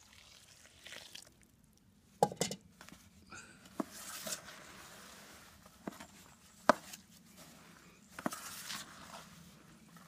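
Round-nose trowel mixing refractory cement and water in a plastic bowl: a few gritty scrapes through the crumbly, still-dry mix and sharp clicks as the steel blade knocks the bowl.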